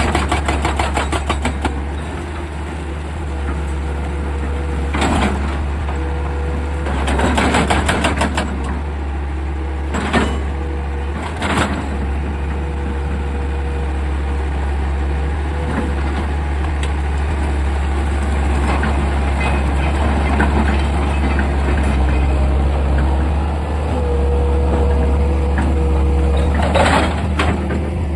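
Excavator's diesel engine running steadily, with metallic clanks and a couple of short bursts of fast rattling, one at the start and one about seven seconds in.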